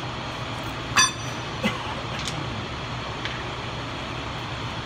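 A single sharp metal-on-metal clink that rings briefly about a second in, followed by a duller knock and a couple of faint ticks, over a steady low background hum.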